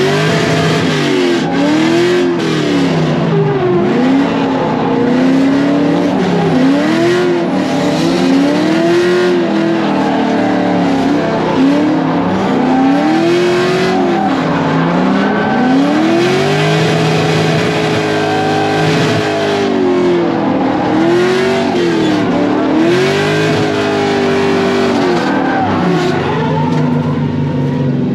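Corvette V8 heard from inside the cabin while drifting, revving up and down again and again as the throttle is worked, each rise and fall lasting about one to three seconds, with tyres squealing under it.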